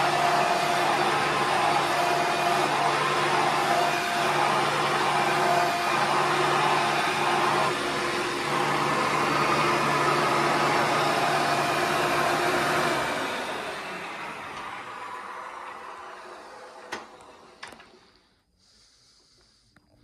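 1994 Hoover Encore upright vacuum cleaner running steadily, then switched off about two-thirds of the way in, its motor winding down over several seconds. Two short clicks come near the end.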